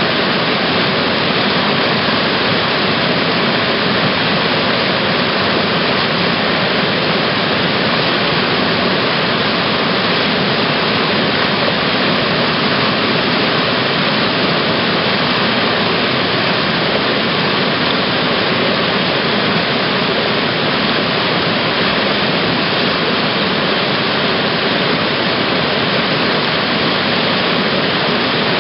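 Loud, steady rush of whitewater: a rapid's standing wave breaking and churning at close range, without let-up.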